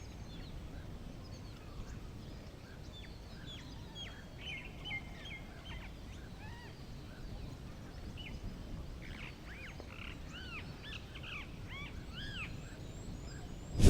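Small birds chirping and twittering over a steady low rumble of outdoor noise, with a run of quick arching notes in the last few seconds. A single sudden loud knock right at the end.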